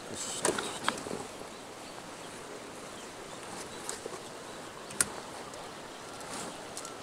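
Steady outdoor background noise with a few light, sharp clicks and taps, the sharpest about five seconds in.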